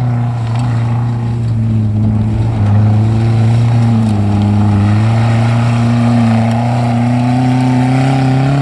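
Mazda Protege5 rally car's engine working hard on a dirt track, its pitch dipping and climbing as the car slides through the turns. The engine is loud and continuous throughout, over a steady hiss.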